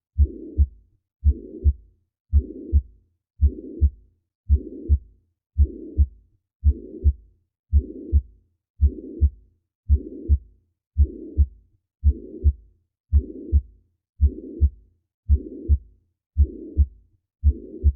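Abnormal heartbeat: a steady 'lub-dub' a little under two beats a second, each beat two low thumps with a rushing murmur between them.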